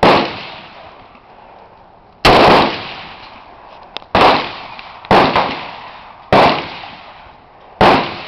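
AK-47 rifle (7.62×39 mm) fired in single shots: six shots at uneven intervals of one to two seconds, each followed by a short trailing echo.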